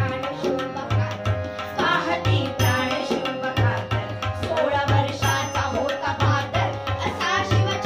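A powada, a Marathi heroic ballad, sung to a driving hand-drum beat, with a steady pulse of low drum strokes under the wavering vocal line.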